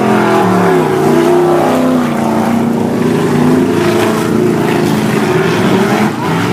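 Several dirt-track stock car engines running hard at once, their pitch dipping and climbing again as the cars pass and accelerate.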